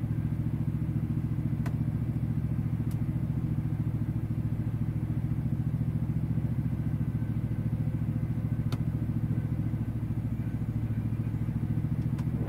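Mack CXU613 truck's diesel engine idling steadily, heard from inside the cab, with a few faint clicks.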